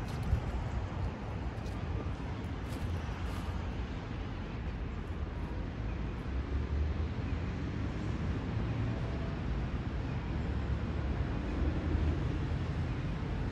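Steady low rumble of city traffic from nearby roads, swelling a little as heavier vehicles pass about seven and eleven seconds in.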